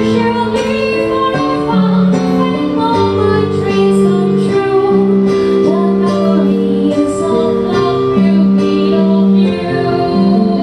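Live music at a slow ballad tempo, led by a digital stage piano holding sustained chords under a slow melody line.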